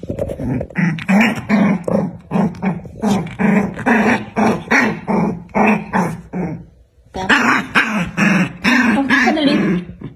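Young puppies play-fighting: a rapid run of short growls and yips, about three a second, with a brief break a little past halfway.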